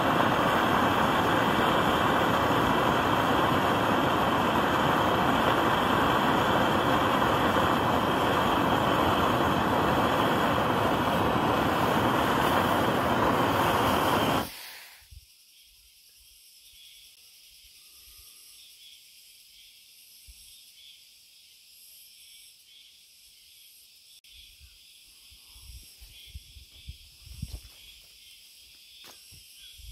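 Gas torch burner hissing steadily against a steel cup of coffee, cutting off suddenly about halfway. Afterwards insects trill faintly, with a few soft knocks and rustles near the end.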